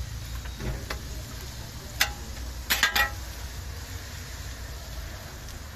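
Bread frying in sucuk fat on a hot griddle, a steady sizzle. There is a sharp knock about two seconds in and a quick run of three knocks a moment later.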